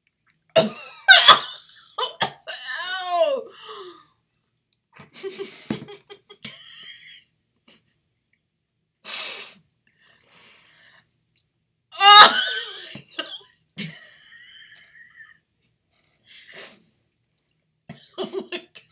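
Two women coughing and laughing with heavy breaths in disgust at a mouthful of vegan yogurt, with loud outbursts about a second in and again near the two-thirds mark.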